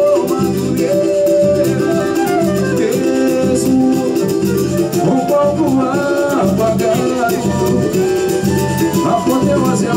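Live samba band playing an instrumental passage between verses: a flute carries a moving melody over strummed guitars and a steady drum beat.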